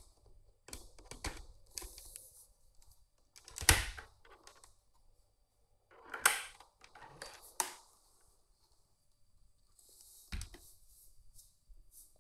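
Handling noises: a scatter of clicks, knocks and rustles with no motor running. The sharpest knocks come about four, six, seven and a half and ten seconds in.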